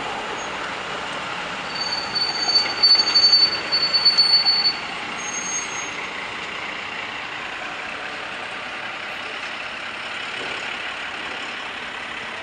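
Semi truck's brakes squealing in a high steady tone for about three seconds as it slows to turn, over a steady hum of city traffic.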